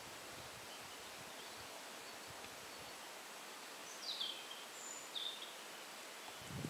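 Faint outdoor ambience: a steady hiss with leaves rustling, and two short bird chirps falling in pitch about four and five seconds in. A low thump near the end.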